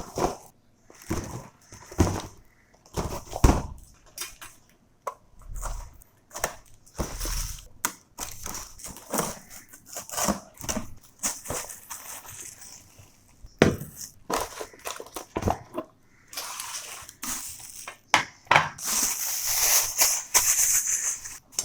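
An electric kettle being unboxed: the box and its packaging are handled, with many irregular knocks and taps and crinkly rustling that gets louder and denser near the end.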